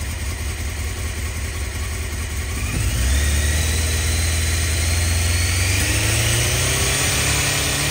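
Honda CBR900RR Fireblade's inline-four engine running at raised revs for a charging-system output test. It picks up about three seconds in and keeps climbing slowly in pitch.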